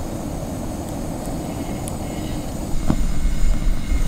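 SOTO single-burner cartridge gas stove burning steadily under a mug of water, a constant low rumble, with a faint tick about three seconds in.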